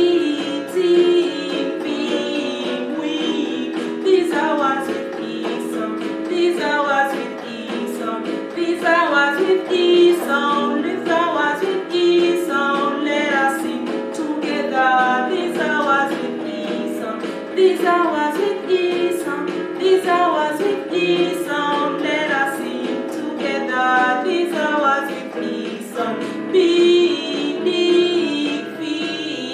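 A woman singing a children's phonics song listing words with the short 'i' sound, over instrumental backing with a steady beat.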